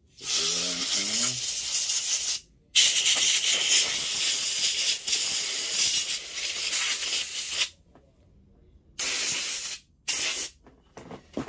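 Compressed-air blow gun hissing in four blasts, blowing steel-wool residue off a pistol slide: a blast of about two seconds, a longer one of about five seconds, then two short ones near the end.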